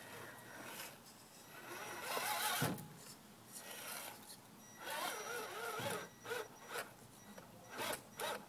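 Radio-controlled scale rock crawler driving in short bursts, its motor and gears whining with wavering pitch as it throttles up, and its tires scrabbling and grinding on rock and gravel.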